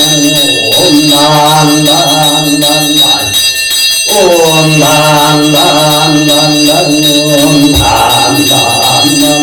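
Korean Buddhist monk chanting a mantra in a drawn-out, melodic male voice, with a bell ringing steadily over it. The chant breaks off briefly about three and a half seconds in and resumes on a falling note.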